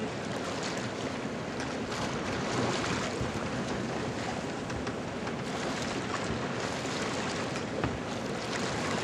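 Steady rush of wind and water aboard a sailboat under way, with wind buffeting the microphone.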